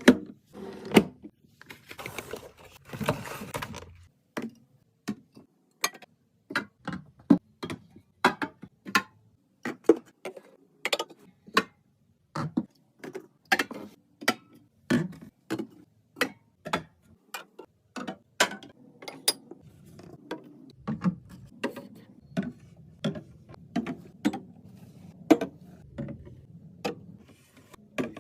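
Fridge restocking handling sounds: containers, jars and packages being set down and slid into place in a refrigerator, giving irregular clicks, taps and clunks about one or two a second, with a burst of rustling near the start.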